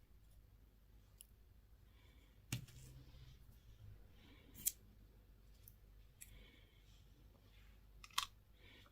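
Sharp clicks and taps of hands handling plastic candy and toy packaging, three louder ones spaced a couple of seconds apart with fainter ticks between.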